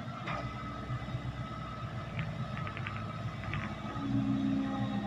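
Heavy diesel engine of earthmoving machinery running steadily, getting louder about four seconds in, with a few brief clicks around the middle.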